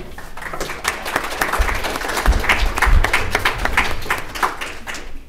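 Audience applauding, a dense patter of many hands that dies away shortly before the end, with a few dull low thumps in the middle.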